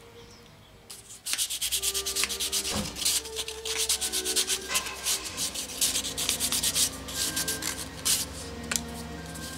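Small piece of clear plastic sheet hand-sanded along its freshly sawn edges with sandpaper: quick rasping back-and-forth strokes, starting about a second in and easing off near the end.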